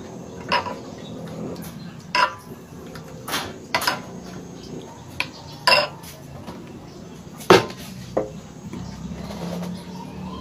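Metal spoon clinking against bowls as thick porridge is spooned from a glass bowl into a ceramic bowl: about seven separate sharp clinks, the loudest about three-quarters of the way in.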